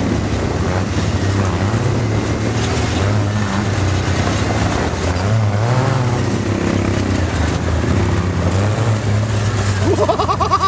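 Off-road buggy engine running steadily and revving up as the buggy drives; a voice is heard near the end.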